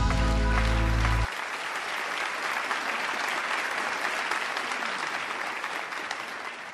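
Theatre audience applauding after a live band's final held chord, which cuts off about a second in; the clapping fades out near the end.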